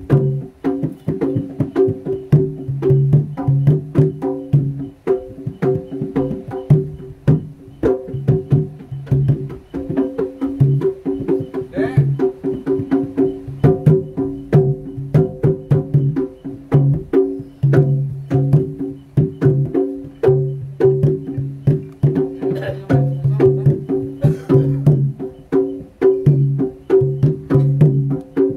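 Traditional Javanese jaranan music accompanying the dance: rapid, continuous percussion strokes over steady ringing pitched tones.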